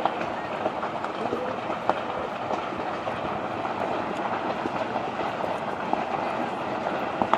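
Open fire burning through dried bamboo and trees: a steady rushing noise with frequent sharp crackles and a few louder pops.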